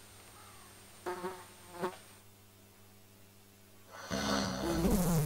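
A housefly buzzing: two brief passes about a second in, then a loud, close buzz over the last second or so.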